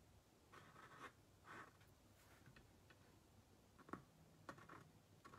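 Faint scratching of a paint pen's tip writing letters on a painted globe, in short strokes, with a few light clicks about four seconds in.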